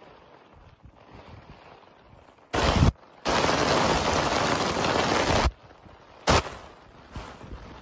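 Wind and heavy rain blasting the microphone in three loud bursts that start and stop abruptly: a short one about two and a half seconds in, a longer one of about two seconds, and a brief one near six seconds. Softer rain hiss fills the gaps between them.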